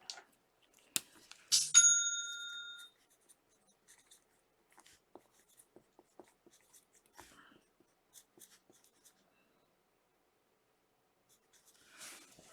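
A single bell-like electronic chime about a second and a half in, ringing for about a second as it fades, then faint scattered clicks and rustles of small handling, and a short brushing sound near the end.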